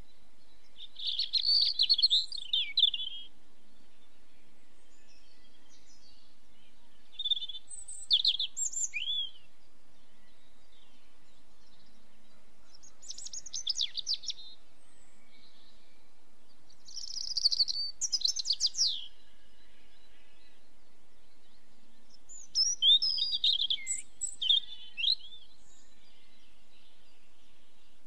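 A small songbird in the background singing short, high chirping and trilling phrases, five times over, each lasting about two seconds, over a steady faint hiss of background noise.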